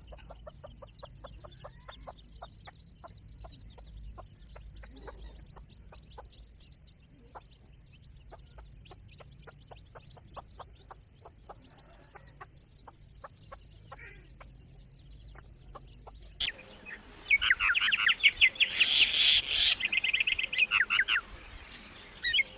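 Domestic hen clucking: a long series of soft, short clucks, then, about 16 seconds in, a sudden louder stretch of fast, high chicken calls that lasts about four seconds.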